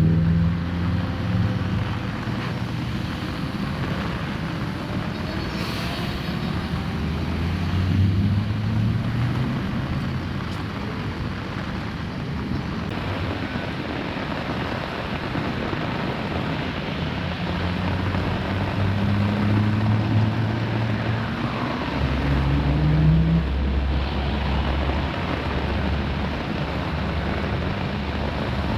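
An engine running continuously under varying load, its pitch rising and falling several times, over a steady rushing noise.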